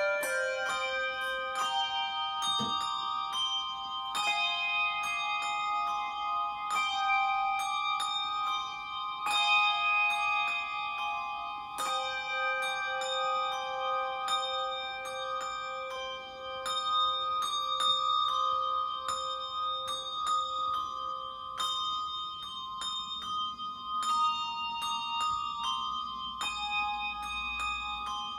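Handbell choir ringing a piece of music: many handbells struck in quick succession, each note ringing on and overlapping the next.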